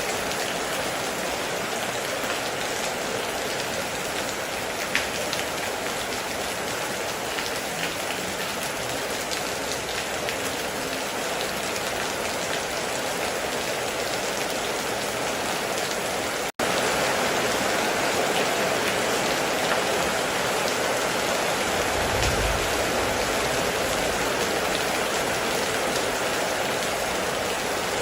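Heavy, steady rain drumming on a metal roof. There is a split-second dropout just past halfway, after which the rain is slightly louder, and a brief low rumble comes a little later.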